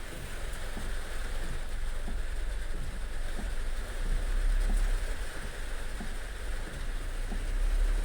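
Heavy rain falling with a steady rush of water and a steady low rumble underneath.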